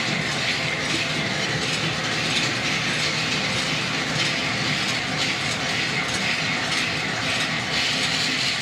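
Factory machinery running with a steady, rhythmic clatter.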